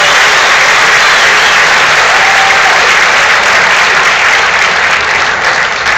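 Audience applauding, steady and loud, starting to die down near the end.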